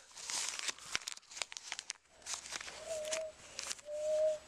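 Paper money rustling and crinkling as it is handled, with a plastic container knocking against it. About three seconds in, and again a second later, come two short steady mid-pitched tones, the second the loudest sound here.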